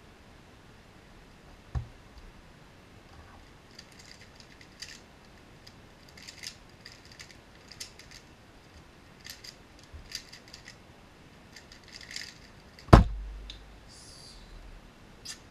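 MGC Square-1 puzzle being turned at speed: quick clusters of crisp plastic clacks as its layers and slice are twisted, for about ten seconds. It ends in a loud thud about thirteen seconds in as the hands come down on the laptop keyboard to stop the timer and the puzzle is set down.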